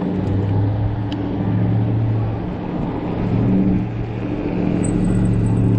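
Low, steady motor drone with a rumbling hum, over wind noise on the microphone.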